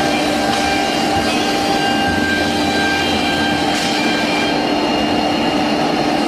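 CNC router spindle running as the bit routes a groove into a wooden door panel: a steady, loud machine hum with fixed tones over a dense cutting noise.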